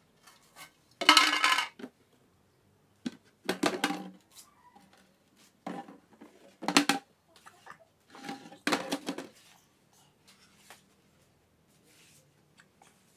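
A metal tin and a clear plastic container knocked together and against the floor by a toddler: about five loud bursts of metallic clatter, the loudest about a second in, with lighter taps and clinks between them.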